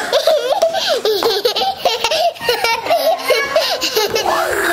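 A young child laughing hard in a rapid run of short, high-pitched bursts, ending in a rising squeal.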